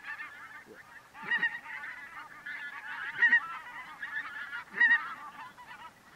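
A flock of wild geese calling: many overlapping honks at once, swelling louder about a second in, around three seconds in and again near five seconds.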